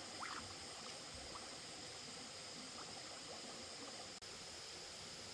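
Steady, faint rush of flowing water, with a few faint short sounds near the start and a brief cut-out about four seconds in.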